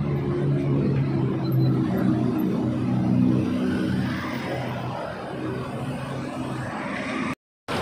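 Diesel engine of a JCB backhoe loader running as it digs, mixed with the engines of road traffic passing close by. The steady low engine note is strongest in the first half, and the sound drops out abruptly near the end.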